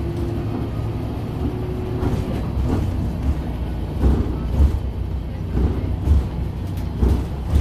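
Cabin sound of an old Volvo city bus driving along: a steady low engine and road rumble, with several short knocks and rattles from the body from about four seconds in.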